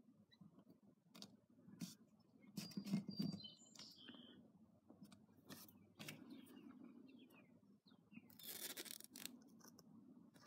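Faint handling of masking tape on a pinball playfield: scattered small clicks and scrapes, a few brief high squeaks about three seconds in, and a short rustling scrape near the end.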